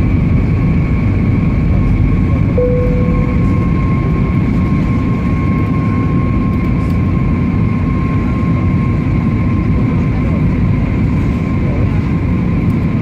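Airbus A320neo cabin noise in flight on approach: a steady low rumble of engines and airflow with a thin, steady whine over it. A short, steady higher tone sounds briefly about two and a half seconds in.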